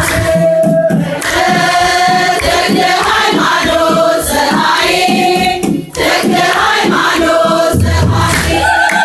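A choir and congregation singing an Ethiopian Orthodox hymn together, holding long notes that change every second or so.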